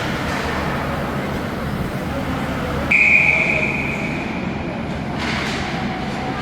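A single steady whistle blast, typical of a referee's whistle stopping play, starting sharply about three seconds in and fading over about a second, over the steady hum of the rink and crowd. A short hiss follows near the end.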